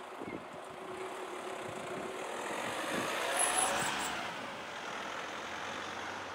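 A vehicle passing by: the traffic noise swells to its loudest a little past the middle, then fades away.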